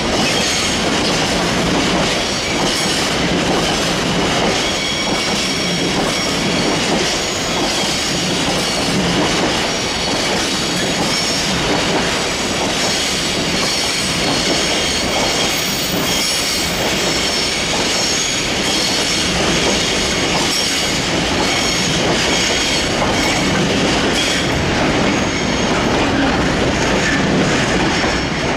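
A train rolling past close by without a break, its wheels clattering on the rails under a thin, high wheel squeal.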